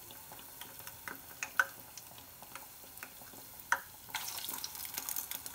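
Hot oil crackling around moong dal vadas deep-frying in a pot, with a couple of sharper pops. About four seconds in, the sizzle thickens as another vada of ground dal batter is slid into the oil.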